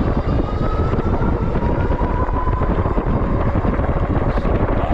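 Wind buffeting the microphone during a ride on a 750 W Synch Super Monkey electric bike, with a thin electric-motor whine that rises slightly in pitch as the bike picks up speed.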